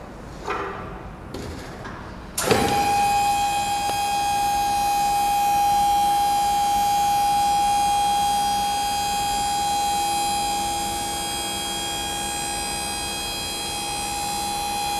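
Electric hydraulic power unit of a mobile pallet changer cutting in with a clunk about two seconds in, then running with a steady whine while the clamped load is tilted over. A few light knocks come before it starts.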